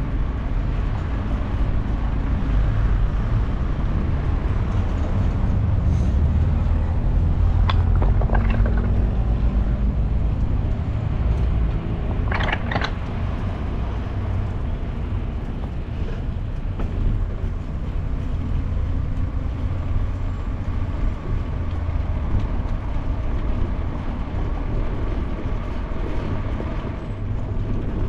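Steady low rumble of wind on a GoPro's microphone and tyre noise from a bicycle rolling over paving, with street traffic. Two short higher-pitched sounds stand out, about 8 and 12 seconds in.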